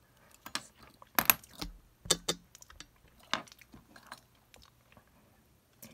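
Scattered clicks, taps and light knocks of small hard parts and hand tools being handled while a Lightning connector is taken apart. The loudest clicks come about a second, two seconds and three and a half seconds in, with fainter ticks between.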